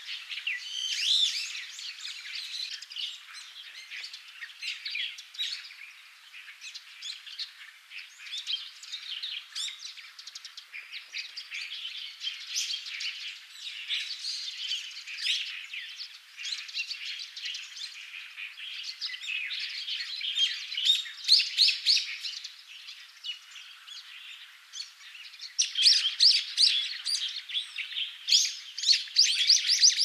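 Brown-eared Bulbuls of the Taiwan subspecies calling: a dense run of overlapping chirps and short squeaky calls. They grow louder and come in quick repeated series in the last few seconds.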